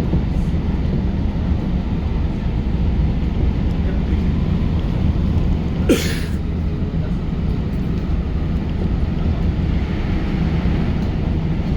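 Electric commuter train running at speed, heard from inside the carriage: a steady low rumble of wheels on rail. About six seconds in there is one brief sharp hiss with a short falling tone.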